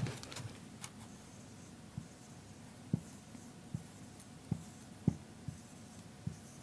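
Marker writing on a whiteboard: faint, irregular taps and short strokes, one every half second to a second.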